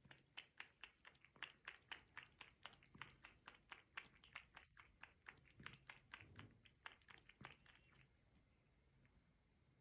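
Domestic cat lapping water with its tongue, faint quick wet laps at about four a second, stopping about eight seconds in.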